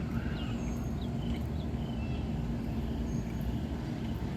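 A steady low rumble with a constant hum, and a few short, faint high chirps scattered through it.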